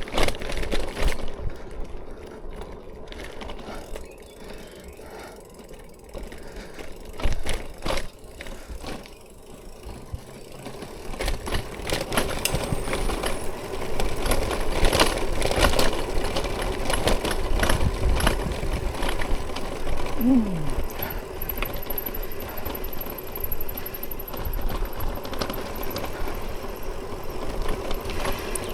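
Bicycle being ridden: rattling, clicking and road noise from the bike, growing louder about eleven seconds in, with a short falling squeak around twenty seconds.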